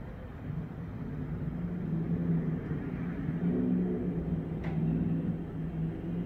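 Motor vehicle engine in the street below: a steady low hum that swells over the first couple of seconds and holds, with a single brief click a little past the middle.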